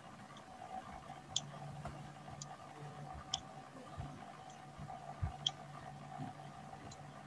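Computer mouse clicking: about half a dozen short, sharp clicks roughly a second apart, over a steady low hum.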